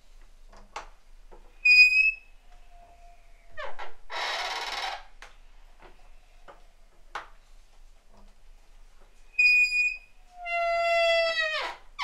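Squeaky wooden door hinges creaking as the door is worked back and forth: short high squeaks, a lower rising squeak, a brief noisy creak, and near the end a long squeal that bends down in pitch as it stops, with light clicks in between.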